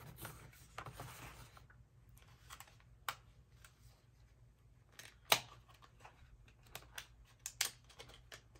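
Plastic packaging and bubble wrap being handled: rustling and crinkling for the first couple of seconds, then scattered sharp crackles, the loudest about five seconds in and a few more near the end.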